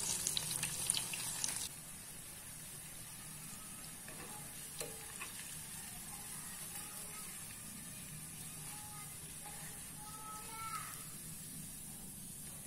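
Corn fritters frying in hot oil in a pan, sizzling and crackling loudly, then cutting off abruptly about two seconds in to a much fainter sizzle.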